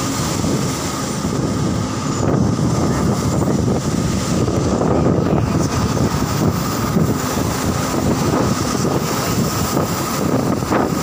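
Steady engine and road noise of a moving vehicle, mixed with wind noise, with a thin steady whine running through it.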